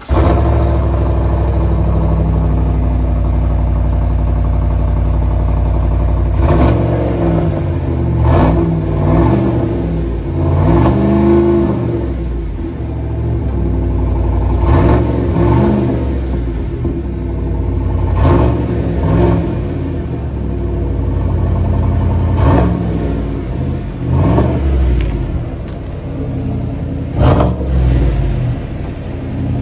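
2022 GMC Sierra 1500 AT4's 6.2-litre L87 V8 through GM's cat-back performance exhaust, heard at the tailpipes. It idles steadily for about six seconds, then is revved again and again in quick blips, each rising and falling back to idle.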